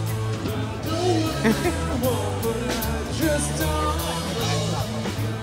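A song with a singer over drums and bass guitar, with a steady beat.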